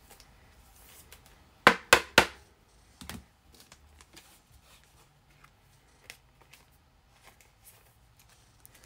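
Trading cards in rigid plastic top loaders being handled and set down on a stack: three sharp plastic clacks in quick succession a couple of seconds in, then a softer one, followed by faint light taps.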